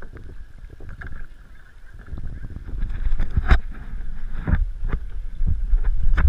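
Water sloshing against a kayak, with a few sharp knocks and splashes and a low wind rumble on the microphone that grows louder from about two seconds in.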